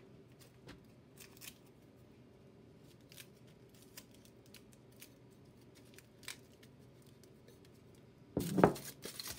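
Aluminium foil crinkling in small, scattered crackles as it is scrunched and pressed onto a glass jar, then a louder rustling burst lasting under a second near the end.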